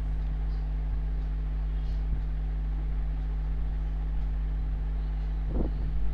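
Steady low mechanical hum with a few fixed low tones, and a short knock about five and a half seconds in.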